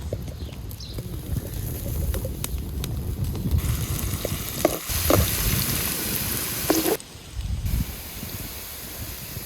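Food sizzling as it fries in a pan, a continuous hiss that changes abruptly a couple of times.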